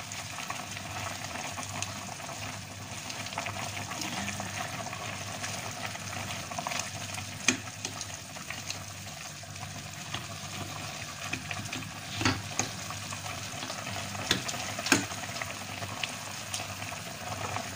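Bihon rice noodles being stirred in a stainless steel pot of boiling broth: steady bubbling with the slosh and scrape of stirring. A few sharp clicks come through as the utensil knocks the pot.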